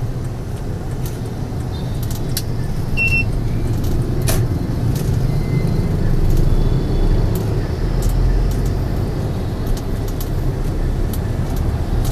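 Motorbike and scooter traffic heard from a moving motorbike: a steady low rumble of small engines and road noise.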